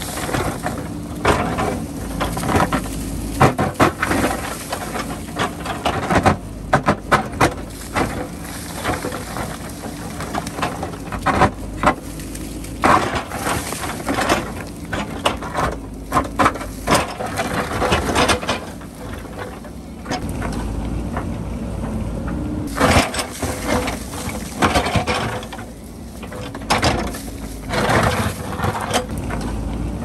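JCB backhoe loader's diesel engine running under load while its steel bucket scrapes and breaks into a rocky bank. Rocks and soil fall and knock against each other in frequent, irregular clatters.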